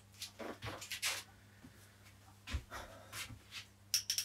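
Scattered short rustles and clicks of a phone being handled and set on a homemade light stand's phone mount, over a faint steady low hum.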